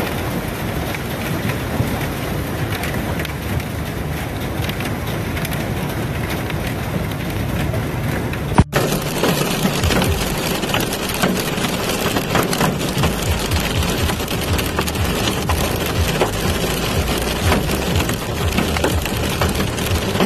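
Hailstorm: hailstones and rain pelting down in a dense clatter of many small impacts, with heavy storm noise. The sound cuts abruptly about nine seconds in to another stretch of hail that is just as dense.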